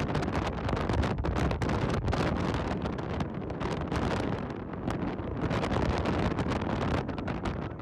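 Wind rushing and buffeting the microphone: a loud, steady rushing noise with many brief crackles through it, easing off near the end.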